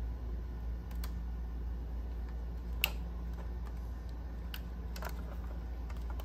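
About five small, sharp clicks and taps as a scale model Range Rover Sport is handled and its hinged door is swung open, the loudest click a little before halfway through.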